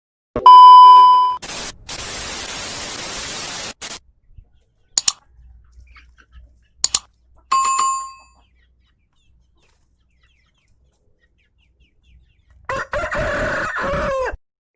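A rooster crowing once near the end, for under two seconds. Before it come a loud steady tone, about two seconds of hiss, a few sharp clicks and a second, shorter tone.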